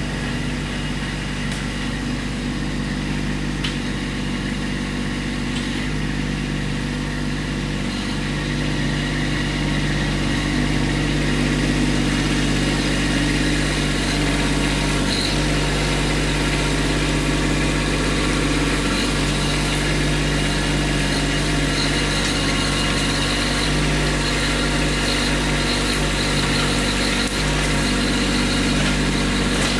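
Kubota B2601 compact tractor's three-cylinder diesel engine running steadily as the tractor drives along a dirt trail, growing louder as it approaches, with a faint high whine joining in the second half.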